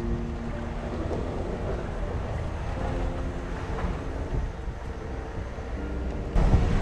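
VW California camper van driving on a rough track: a steady low rumble of engine and wheels, with faint held music chords over it. The rumble grows suddenly louder near the end.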